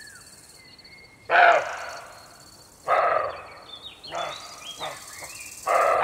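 Deer calling: short, loud calls, three of them about a second and a half apart with fainter ones in between, over birds chirping and an insect's steady high trill.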